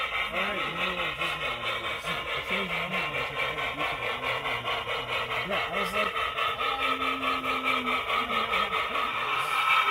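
HO-scale model steam locomotive running with its train: a steady rhythmic hiss of chuffs, pulsing several times a second.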